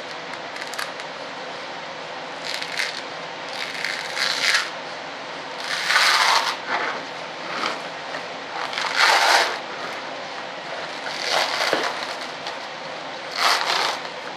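Plastic vacuum-bag material being peeled and pulled off a freshly molded composite stabiliser part, in about six short crinkling, rustling pulls a couple of seconds apart. It is harder going where a lot of resin has pooled.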